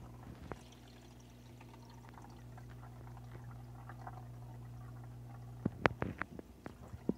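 Steady low hum of aquarium equipment with water bubbling in the tank, and a few sharp clicks near the end.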